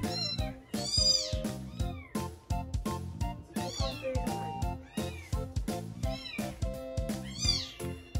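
Young kitten mewing several times in short, high cries that rise and fall, over background music with a steady beat.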